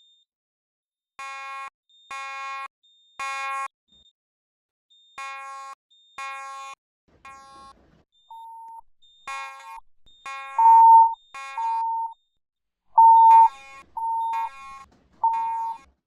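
Fire alarm sounding the temporal-three evacuation pattern: three buzzy beeps about a second apart, a pause, then three more. About eight seconds in, a second, purer and louder alarm tone joins in the same three-beep rhythm, slightly out of step with the first.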